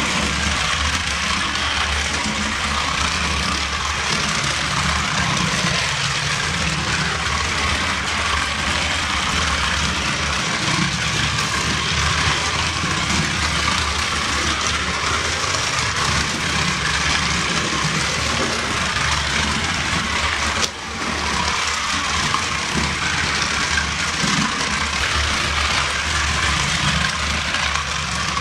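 Battery-powered Twister Trax toy cars running along the flexible plastic track: a steady whirring rattle of small motors and plastic wheels, broken briefly about 21 seconds in.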